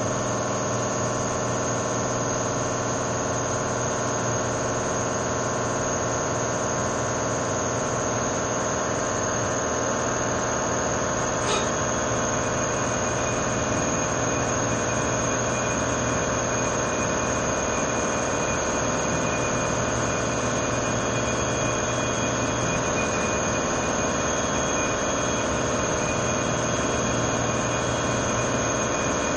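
CNC vertical mill drilling an oil gallery into a billet aluminium big-block Ford engine block: a steady machine whine with a high, thin tone, and a single click partway through.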